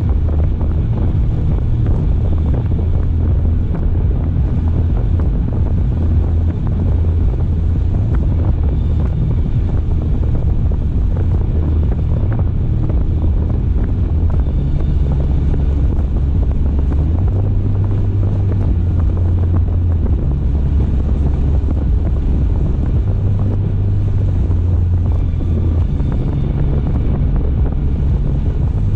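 Car driving at speed: steady low rumble of road and wind noise, with small shifts in the low drone.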